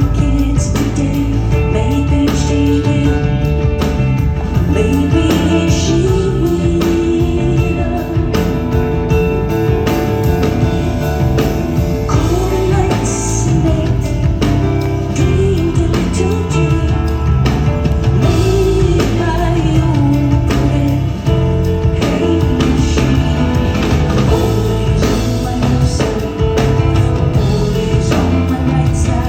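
Live band music: piano and keyboards with bass and drums keeping a steady beat, and a woman singing over it.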